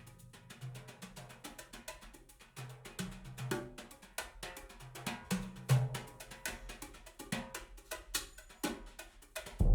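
Percussion-led music played back over Elfton Vegas II four-way loudspeakers: a quiet passage of sharp, closely spaced hand-percussion strikes with occasional low drum notes.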